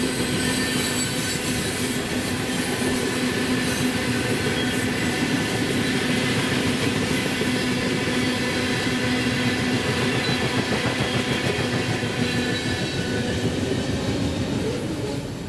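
Freight train's covered hoppers and tank cars rolling past on steel rails: a steady rumble with high wheel squeal, until the last cars pass near the end.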